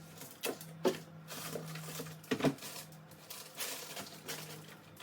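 A few light knocks and soft rustling as food containers and packaging are handled and set down while clearing out a fridge, over a faint steady hum.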